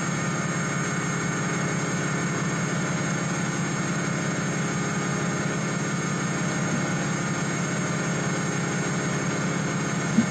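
Steady mechanical drone of a decompression chamber's pump running, even in pitch and level throughout, with a brief blip near the end.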